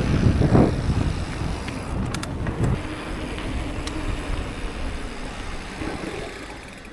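Wind buffeting the microphone and rolling rumble from a moving bicycle, fading gradually as the bike slows, with a few light clicks and rattles about two seconds in.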